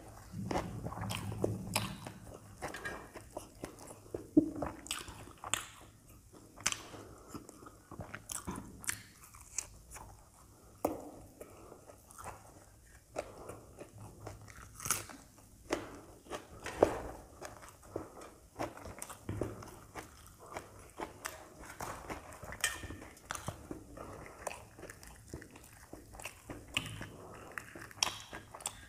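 Close-up eating of crisp deep-fried puris with potato curry: pieces torn off by hand and chewed, giving irregular crunches and crackles throughout.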